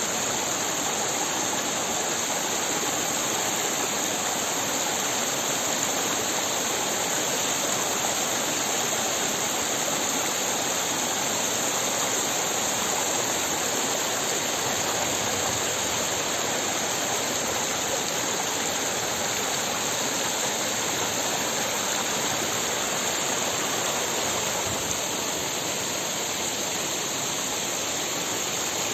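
Shallow rocky mountain stream running over stones in small cascades: a steady, even rush of splashing water.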